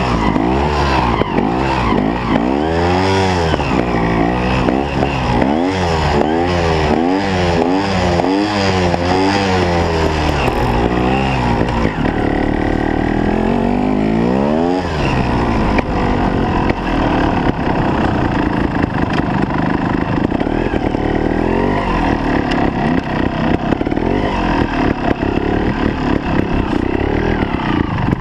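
Trials motorcycle engine, close up, revved in quick rising-and-falling blips about once a second, then one longer rise and steadier running as the bike rides on.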